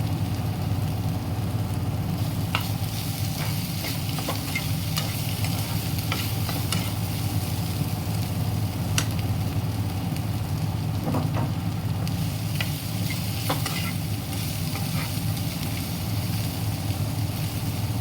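Diced raw banana and spices sizzling in oil in a kadai while a spatula stirs and scrapes the pan in scattered clicks, over a steady low hum.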